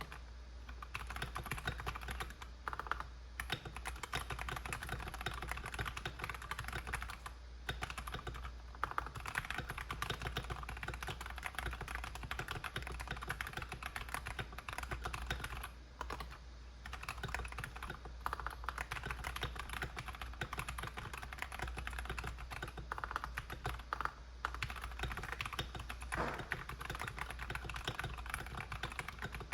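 Fast continuous typing on a KBD67 Lite mechanical keyboard with lubed Outemu Ice Clear V2 switches, broken by a few brief pauses. With bump-ons fitted under the case it sounds clacky rather than thocky.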